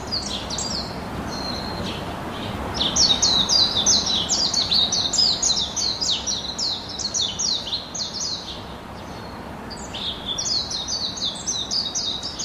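Small birds chirping: many quick, downward-sliding chirps in rapid succession, thickest from about three seconds in to about eight, thinning, then picking up again near the end, over a steady background hiss.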